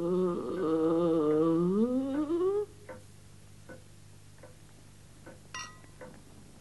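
A long, wavering groan in a man's voice that slides upward in pitch, lasting about two and a half seconds. After it, a clock ticks steadily, with a short ringing ping near the end.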